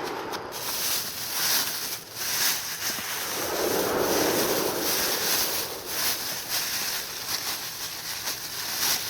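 Sea waves washing in, one surge swelling about four seconds in, with wind buffeting the microphone and rustling over it.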